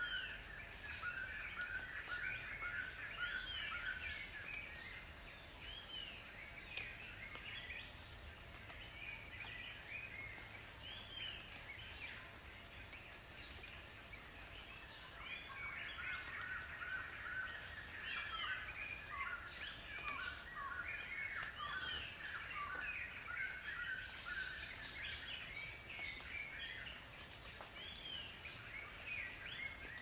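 Many wild birds chirping and calling at once, short arched chirps overlapping throughout and thinning out for a few seconds in the middle, over a thin steady high whine that stops near the end.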